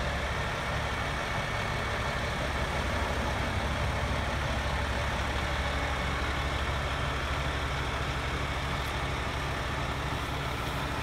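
Heavy rotator tow truck's diesel engine running steadily at a low, even hum while its boom winch lifts the overturned trailer.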